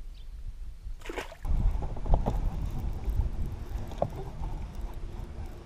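Wind buffeting the microphone and water lapping against a fibreglass bass boat's hull, a steady low rumble, with a short rush of noise about a second in and a few sharp clicks.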